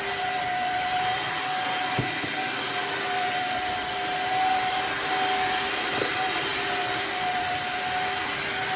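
Shark HydroVac MessMaster wet-dry vacuum mop running, a steady motor whine over an even hiss, with a faint tick about two seconds in and another about six seconds in.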